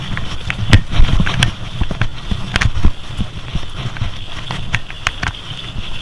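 Mountain bike rolling over a rough dirt and gravel track: tyres crunching and the frame and parts rattling, with irregular sharp knocks over bumps and a steady high-pitched buzz underneath.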